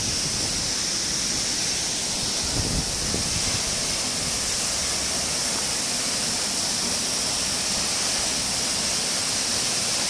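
Waterfall pouring onto rocks: a steady rushing of falling water.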